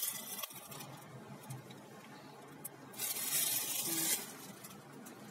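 Thin clear plastic bag crinkling and rustling as it is handled, loudest for about a second around three seconds in.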